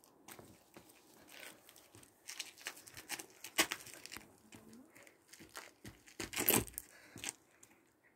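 Rustling and crackling handling noise from the phone's microphone rubbing and knocking against a jacket, in irregular bursts that are loudest about three and a half and six and a half seconds in.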